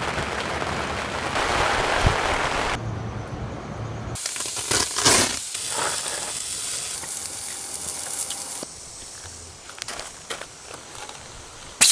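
Rain falling, a steady hiss that changes abruptly in tone and loudness at cuts about 3, 4 and 9 seconds in, loudest and brightest in the middle; a sharp click near the end.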